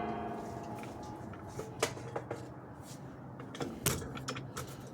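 Handling noise of bundled extension cords and zip ties: a ringing tone dying away at the start, then a few scattered light clicks and taps, two clustered about two seconds in and a louder pair near four seconds.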